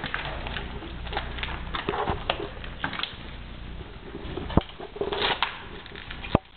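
Rustling and handling noises broken by a series of sharp clicks and knocks. The loudest two come a little past the middle and near the end.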